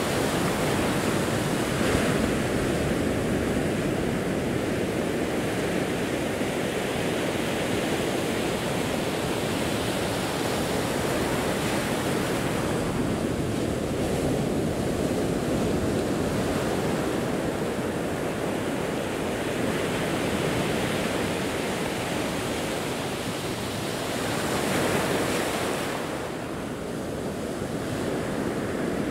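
Ocean surf breaking and washing over a rocky shore: a continuous rush of water that swells and eases in slow surges, a little louder about 25 seconds in.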